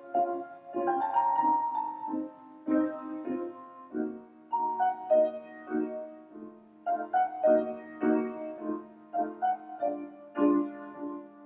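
Grand piano played solo: chords and a melody line, each note struck and left to die away.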